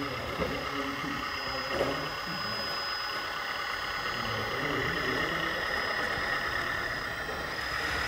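Volvo BL71 RC hydraulic backhoe loader model with its diesel engine sound idling steadily, and a thin steady high-pitched whine that breaks off briefly near the end.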